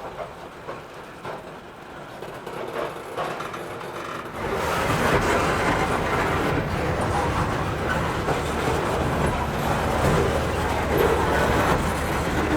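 Freight coal train passing on the rails, with scattered faint clicks at first. About four and a half seconds in, it turns suddenly louder into a steady rumble of the train's running.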